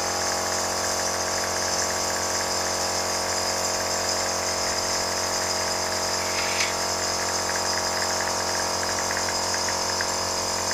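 A small motor-driven machine running steadily: a continuous hum with a hiss above it, unchanging throughout. One short click about six and a half seconds in.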